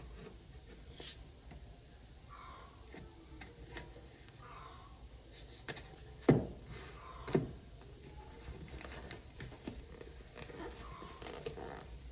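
Snap-off utility knife blade scraping and slicing along the packing tape of a small cardboard parcel, with scattered clicks and rustling as the box is turned in the hands. Two sharp knocks, the loudest sounds, come about six and seven seconds in.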